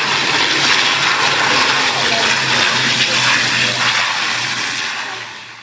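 Jet airliner engines running, a loud steady rush that dies away near the end.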